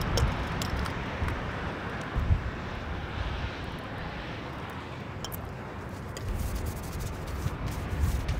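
Uneven low outdoor rumble with a steady hiss and a few faint clicks.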